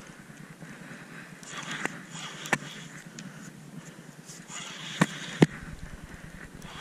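Wind hiss on the microphone with a few sharp knocks and clicks, the loudest two close together about five seconds in.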